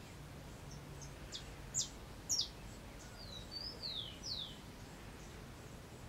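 A bird calling outdoors: a run of short, high, falling whistled notes starting a little over a second in, the two loudest close together around two seconds, then a few longer falling notes before it stops after about four and a half seconds.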